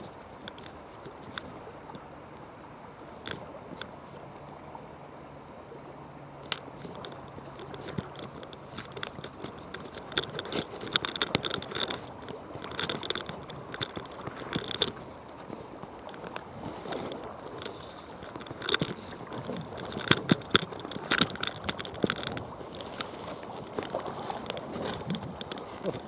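River water running and lapping close to the microphone, with irregular splashes and knocks that grow busier from about ten seconds in.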